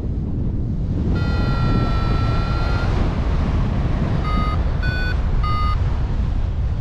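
Wind buffeting the microphone, with an electronic flight variometer beeping: one long tone of nearly two seconds about a second in, then three short beeps about half a second apart, the middle one a little higher in pitch.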